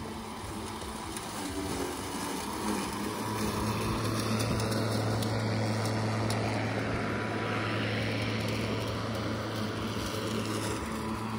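Makita DLM464 36-volt cordless electric lawnmower running with a steady hum, its blade cutting through long dry grass; the hum grows louder about three seconds in as the mower comes close.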